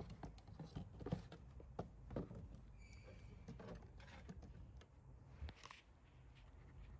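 Faint, irregular clicks and light knocks, the loudest about a second in, with a brief faint high tone about three seconds in.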